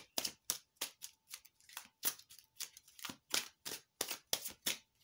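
A deck of tarot cards being shuffled by hand: a quick, regular swish of cards sliding over each other, about four strokes a second.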